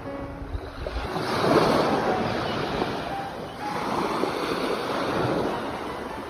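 Sea waves surging and breaking on a shore, the surf rising and falling in two swells.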